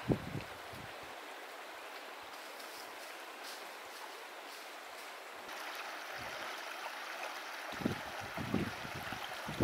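Steady rushing of a flowing creek, a little stronger from about halfway through, with low gusts of wind buffeting the microphone at the start and near the end.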